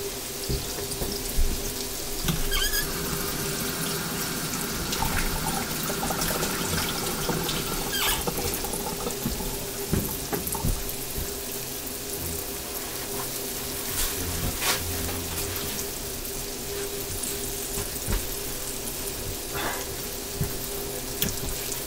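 Floured squirrel legs frying in hot oil: a steady sizzle with scattered pops and crackles, over a low steady hum.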